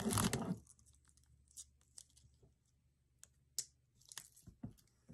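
Plastic Lego parts bags being handled: a brief crinkle at the start, then sparse light clicks and taps, two of them sharper about three and a half seconds in, and a little more crinkling near the end.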